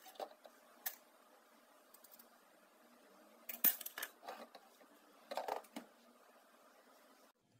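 Scattered clicks and clatter of small hard objects being handled, in a few short clusters, over a faint steady hum; it cuts off abruptly near the end.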